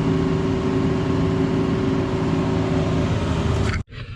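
Cat 304 mini excavator's diesel engine running at a steady speed, cutting off suddenly near the end.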